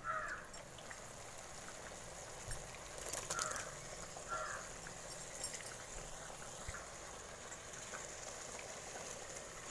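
Faint sizzling of onion-tomato masala in a kadai as handfuls of raw prawns are dropped in, with a few soft clicks of a spoon against the pan. Two short faint calls sound in the background a few seconds in.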